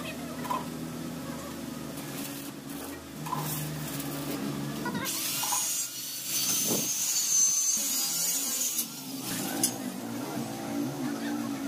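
Electric angle grinder working on mild-steel square tube: a steady motor drone under a harsh, high grinding hiss and whine, loudest between about five and nine seconds in.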